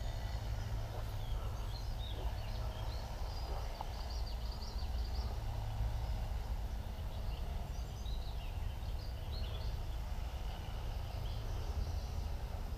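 Small birds chirping repeatedly in the background over a steady low outdoor rumble.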